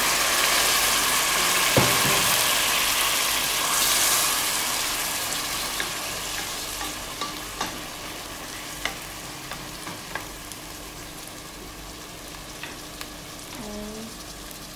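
Chopped tomatoes frying in hot olive oil and onion in a steel pot: a loud sizzle that slowly dies down to a softer frying hiss. Now and then a utensil clicks against the pot as the mixture is stirred.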